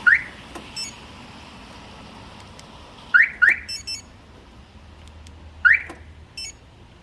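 Aftermarket truck alarm siren giving short rising chirps: one at the start, a quick double chirp about three seconds in, and one more near the end. Each chirp is followed by a brief, fainter electronic beep.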